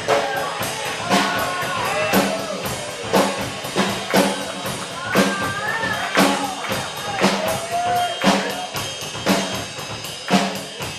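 Live rock band playing, with drum kit hits landing about once a second under pitched melodic lines that slide up and down.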